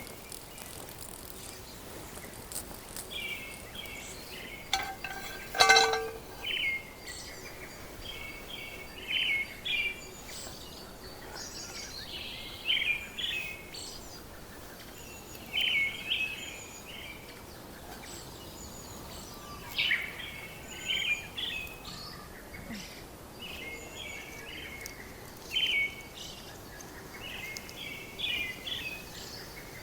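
A songbird singing short chirping phrases again and again over a steady background hiss. About six seconds in there is a single sharp metallic clink that rings briefly.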